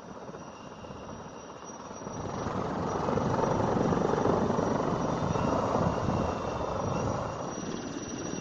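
Geiger HPD 12 electric paramotor motor driving its folding two-blade propeller: a rush of propeller air that swells about two seconds in, holds, and eases a little near the end, over a faint steady high whine.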